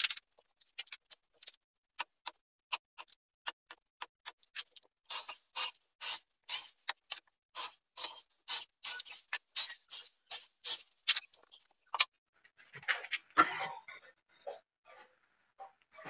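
Quick repeated scraping strokes of a hand tool along the edge of a melamine-faced board, about three a second, going on for about twelve seconds. Then a brief rougher rustle and clatter of handling, and a few small knocks.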